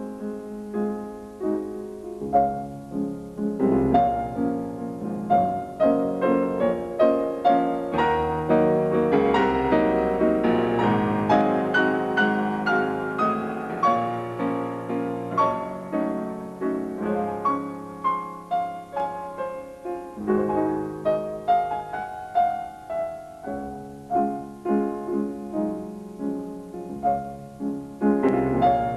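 Background piano music: a melody of struck single notes over lower held chords.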